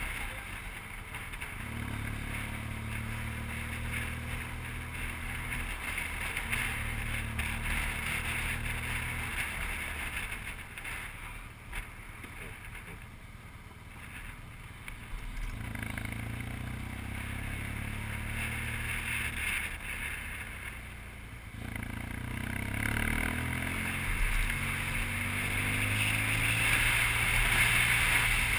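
BMW R1200GS boxer-twin engine running under way, with wind rushing over the microphone. The engine note eases off and goes quieter for a few seconds in the middle, then picks up again, and engine and wind grow louder toward the end.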